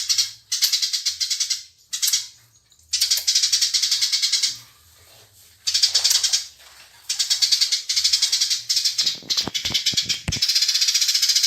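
Eurasian tree sparrows fighting, giving fast, dense chattering calls in bursts of one to two seconds with short breaks between them. A few sharp knocks come near the end.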